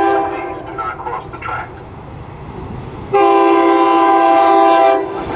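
SEPTA Silverliner V electric train sounding its horn for a grade crossing: a short blast at the start, then a long, loud blast about three seconds in that lasts nearly two seconds, over the running noise of the approaching train.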